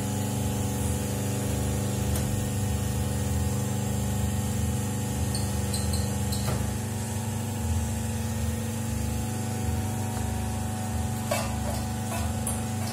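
Small injection moulding machine for plastic toy tops running with a steady motor hum. A faint click comes about six and a half seconds in, and two more near the end.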